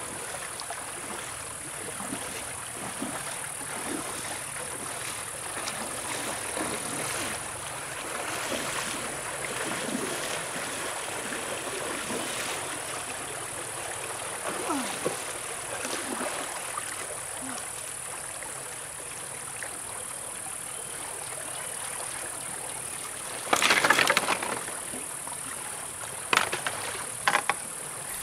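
Shallow stream running over rocks, with splashing from wading through the water. Near the end comes a loud burst of splashing about a second long, then a few short sharp splashes.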